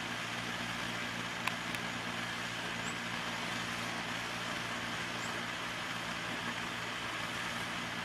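Steady low mechanical hum with an even hiss, of the kind distant road traffic or an air conditioner makes, with two faint clicks about a second and a half in.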